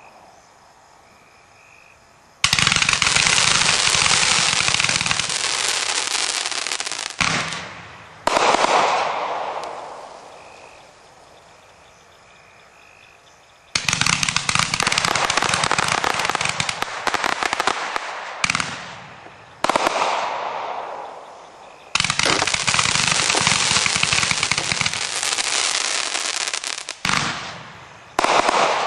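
Dominator Euro consumer fireworks going off: three times a dense, rapid crackle with hiss starts suddenly and runs for about four seconds. Each run is followed by two shorter bursts that trail off as they fade.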